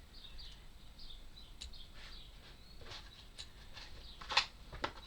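Faint high bird chirps in the first second or so, then a few sharp clicks and knocks of wooden puzzle pieces being pushed together onto a spindle, the sharpest about four seconds in.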